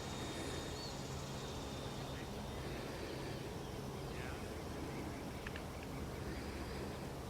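Outdoor ambience dominated by a steady low wind rumble on the microphone, with a faint high whine fading out about a second in and a few faint bird chirps.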